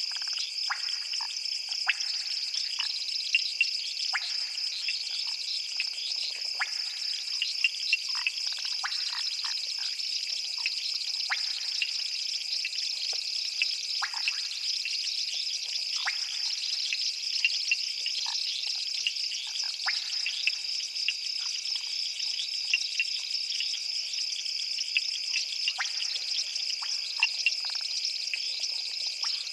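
Chorus of frogs and insects: a steady high-pitched trill with many short, sharp clicking calls scattered over it.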